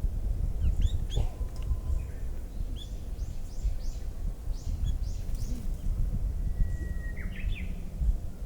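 Several small birds chirping in short scattered calls over a steady low outdoor rumble. Near the end one bird whistles a long held note, then a quick run of higher notes.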